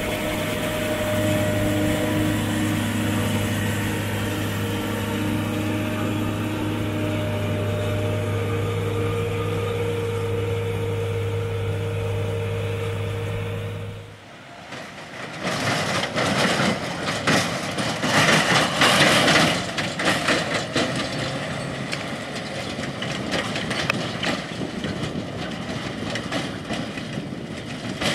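John Deere 7250 self-propelled forage harvester running steadily while chopping corn, a constant engine hum with a low drone. About halfway through it cuts off abruptly and a rougher, uneven rushing noise takes over, swelling and easing.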